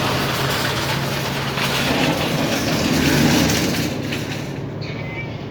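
A vehicle passing by: a steady low rumble and rush of noise that swells about three seconds in and fades near the end.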